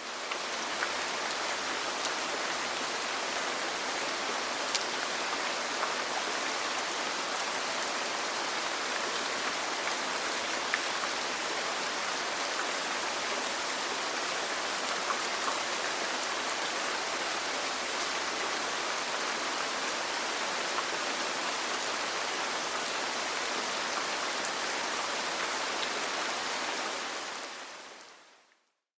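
Steady rain, an even hiss of falling rain with scattered faint ticks of drops. It fades in at the start and fades out near the end.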